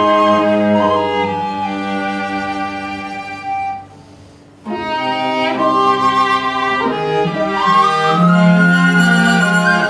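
Violin, viola and cello playing sustained bowed notes with some sliding pitches. The playing dips almost to silence for about a second, roughly four seconds in, then resumes.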